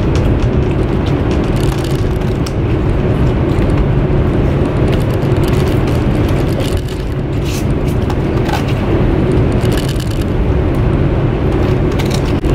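Steady rumble of a high-speed train heard from inside the passenger carriage, with a few light clicks over it.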